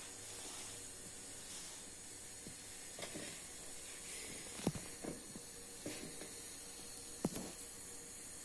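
A handful of light knocks and taps from kitchen handling, two of them sharper, over a steady hiss.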